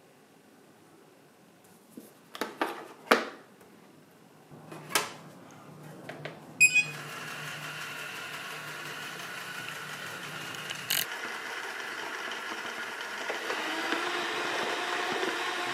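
A few sharp clicks and knocks, then a vacuum cleaner switching on abruptly about six and a half seconds in and running steadily, growing a little louder toward the end.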